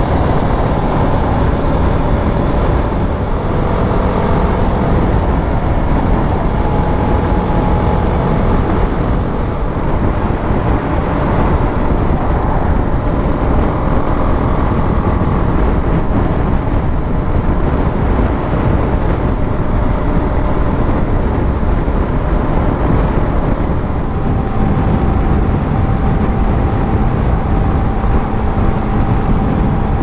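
Motorcycle cruising at road speed in strong wind: a loud, steady rush of wind buffeting the microphone, with a faint engine tone underneath that shifts in pitch a few times.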